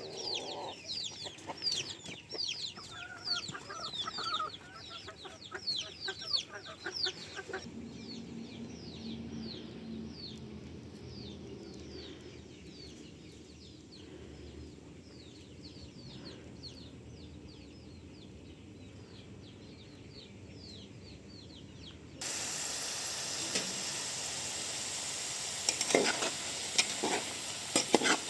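Chicks peeping in rapid, high, downward-sliding cheeps that fade out after about 13 seconds. About three-quarters of the way through, the sound switches suddenly to food sizzling in a hot pan, with a few clinks of a utensil stirring near the end.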